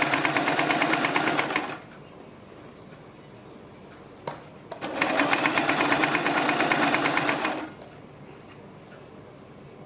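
Electric sewing machine stitching in two runs of rapid, even needle strokes: the first stops a little under two seconds in, and after a pause with a click the second runs for about two and a half seconds.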